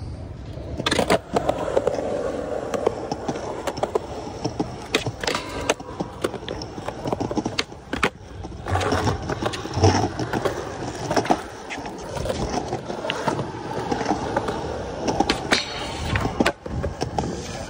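Skateboard rolling on a concrete path, with repeated sharp clacks as the board's tail and wheels strike the ground.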